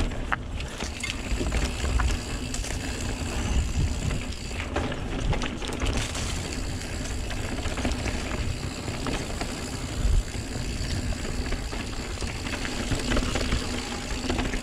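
Santa Cruz Megatower enduro mountain bike rolling fast down a packed-dirt singletrack: steady tyre and trail noise with a low rumble, a few scattered clicks and rattles from the bike.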